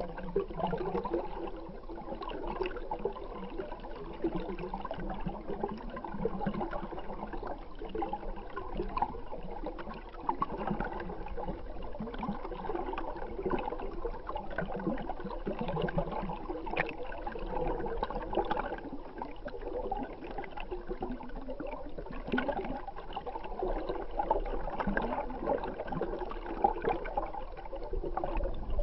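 Stream water flowing, heard through an underwater camera: a steady rush of water with little high end.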